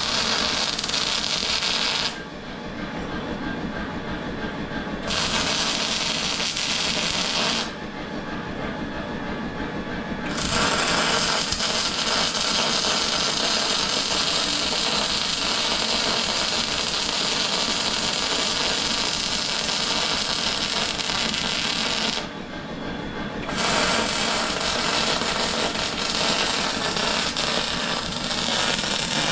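MIG welder arc crackling and buzzing as steel is welded, in several runs with three short breaks between beads.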